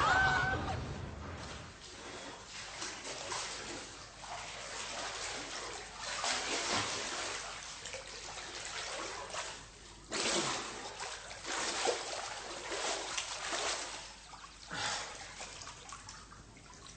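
Water splashing and sloshing in a swimming pool, with louder splashes now and then.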